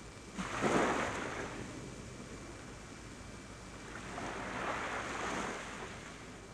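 Two swells of rushing noise. The first comes in suddenly about half a second in and fades within a second. The second builds and fades more slowly near the end.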